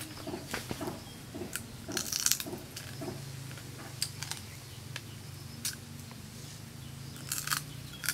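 Close-up chewing and crunching of fried crab: a few soft chews a second at first, then sharp crunches of crab shell every couple of seconds, the loudest about two seconds in.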